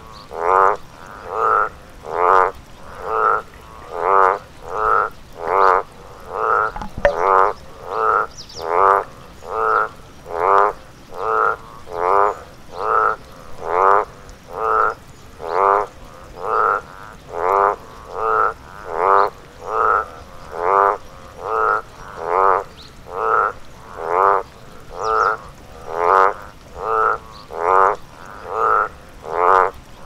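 A frog croaking over and over in an even rhythm, about three short croaks every two seconds.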